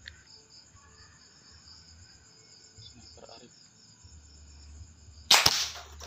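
Crickets chirping steadily, then about five seconds in a single sharp air rifle shot, which squarely hits the pigeon it was aimed at.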